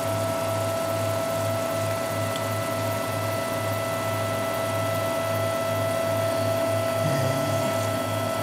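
MendelMax 3D printer running at slow print speed: its stepper motors whine at two steady pitches over a low pulse repeating about three times a second.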